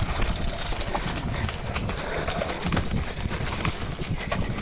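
Mountain bike rolling over a bumpy dirt trail: steady tyre and ground rumble with many quick rattles and knocks from the bike over the bumps.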